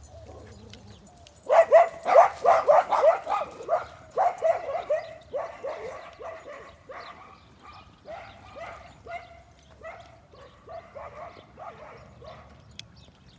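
Dogs barking in a rapid run of short barks, about four or five a second, starting about a second and a half in. They are loud at first, then grow steadily fainter toward the end as they move away.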